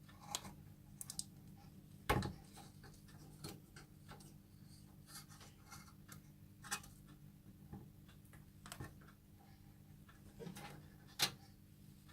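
Scattered, irregular light clicks and taps of hands working on the gas hob's parts, with one louder knock about two seconds in and another near the end, over a faint steady hum.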